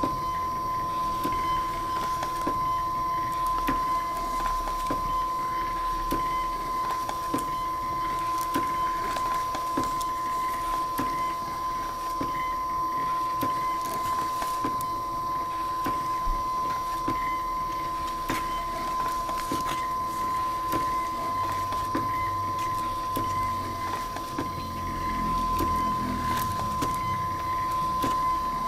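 Printer running continuously as it prints a long run of shipping labels: a steady whine with light ticks.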